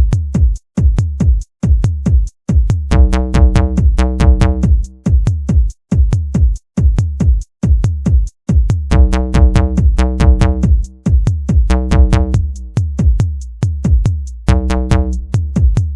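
Electronic outro music with a steady drum-machine beat, deep bass and synth chords.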